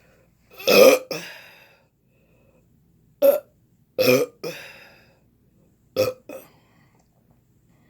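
A person belching repeatedly after drinking carbonated Coca-Cola: a long burp about a second in, then three shorter ones around three, four and six seconds in.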